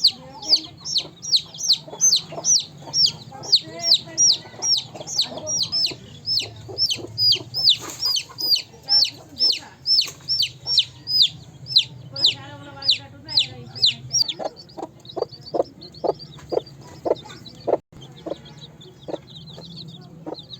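A parrot calling over and over: sharp, high, down-sliding squawks at about two a second. About 14 seconds in, these give way to shorter, lower-pitched calls.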